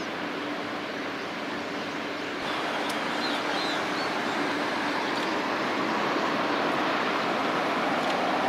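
Strong wind rushing over the microphone as a steady noise, with a faint steady hum under it for the first couple of seconds. The noise grows louder about two and a half seconds in, and a few short high chirps come through about three seconds in.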